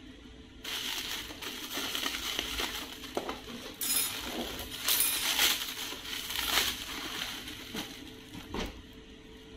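Clear plastic packaging crinkling and rustling as it is handled and unwrapped, with many small crackles. It starts about a second in and dies down near the end.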